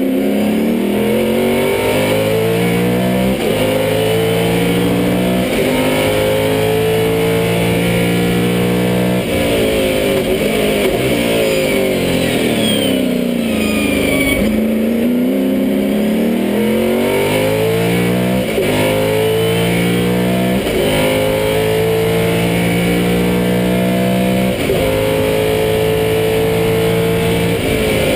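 Lola T70 Mk3b's V8 engine heard from the cockpit under full racing load: it climbs through the gears with several upshifts, then winds down through a run of downshifts under braking in the middle, and pulls hard up through the gears again, with wind and road noise throughout.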